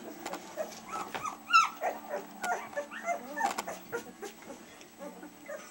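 Two-week-old collie puppies whimpering and squeaking as they nurse: many short, high cries scattered one after another, the loudest and shrillest about a second and a half in.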